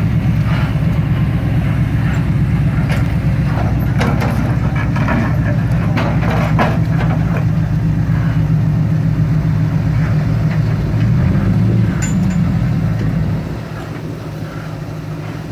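Off-road vehicle engine running steadily at a loud, low note, with a few sharp knocks in the middle. About 13 seconds in it drops to a quieter level.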